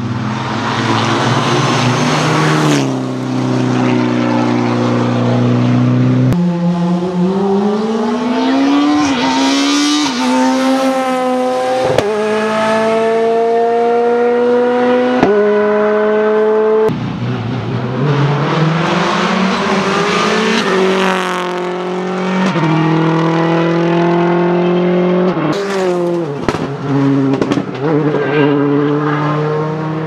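Rally cars, among them a Mitsubishi Lancer Evolution, running flat out on a tarmac special stage. The engine note climbs and then drops in steps with each upshift, and later falls and swings as the cars brake and pass.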